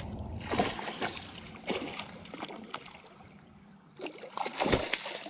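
A small hooked northern pike thrashing and splashing at the water's surface as it is brought to the bank, in several short bursts, the loudest near the end.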